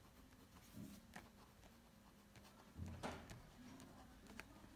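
Near silence, with faint scratches and small taps of a pen writing on paper; a slightly louder one comes about three seconds in.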